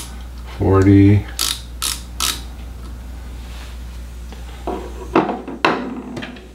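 Ratchet thimble of a digital micrometer clicking three quick times as it closes on a nickel silver ferrule for a reading, followed a few seconds later by a couple of light knocks as the tool is handled. A steady low hum stops about five seconds in.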